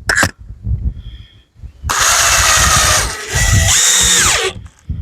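Power drill driving screws into the wooden hive box: two runs of about a second each, the second ending with the motor's whine falling as it winds down.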